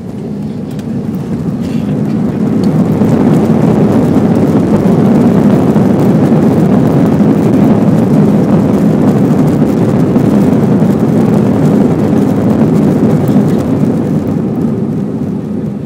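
Jet airliner's engines running up in reverse thrust during the landing roll, heard from inside the cabin as a loud rushing roar. It swells over the first few seconds, holds, then eases off near the end as the aircraft slows.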